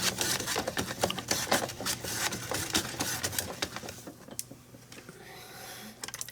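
Vegetable slicer cutting cucumbers into round slices while held down by hand: a rapid, uneven run of clicks and chops that thins out after about four seconds.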